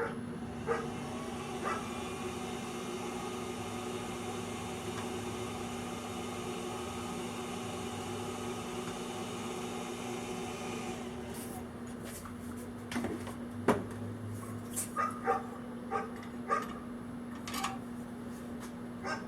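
Bolt Buster handheld induction heater running with a steady whine while it heats a screwdriver shaft, shutting off about eleven seconds in. After that, a string of short, sharp sounds over a steady background hum.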